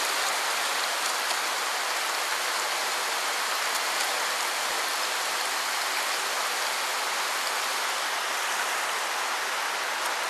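Shallow stream flowing over rocks and pebbles: a steady, even splashing hiss of water.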